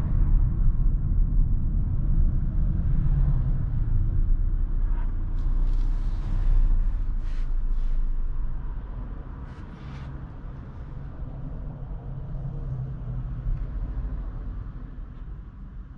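Kia Sorento's 2.2 CRDi diesel driving, a low engine-and-road rumble that drops noticeably in level about halfway through. A few short hisses come in the middle.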